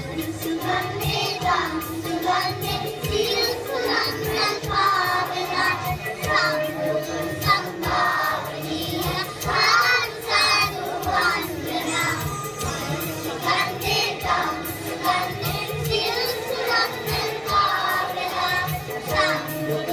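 A children's choir singing a Sinhala Buddhist devotional song (bakthi geetha) together over musical accompaniment.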